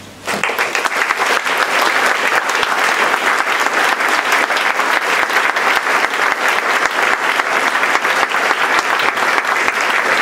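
Audience applauding, breaking out suddenly about half a second in and then holding steady.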